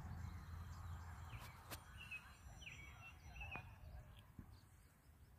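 Faint bird chirps, a few short calls a couple of seconds in, over a low rumble with a few light clicks.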